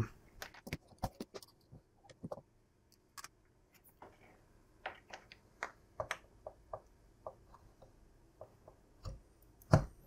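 Faint, scattered clicks and light knocks of a mains plug and its cable being handled, with a louder knock near the end as the plug is pushed into the socket of a plug-in power meter.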